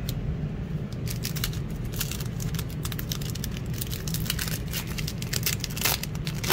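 Foil wrapper of a Panini Fortnite Series 3 trading-card pack crinkling and crackling as it is handled and torn open by hand. A steady low hum runs underneath.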